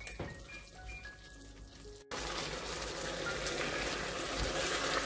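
Soft background music of single, separate notes for about two seconds. Then the sound cuts abruptly to tomato sauce with chicken drumsticks and onions bubbling and sizzling in a pan as it reduces over raised heat, with chopsticks stirring and turning the drumsticks.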